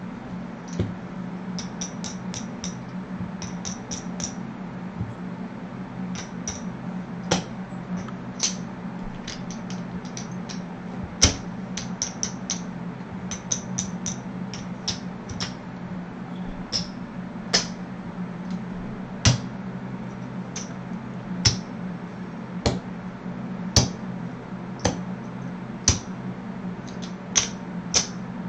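Casino chips clicking against each other and onto a felt craps layout as bets are set out and pressed. The clicks come in quick clusters at first, then as single sharper clicks about every second, over a steady low hum.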